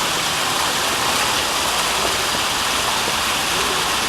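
Steady rush of falling, splashing water from an indoor waterfall, even and unbroken throughout.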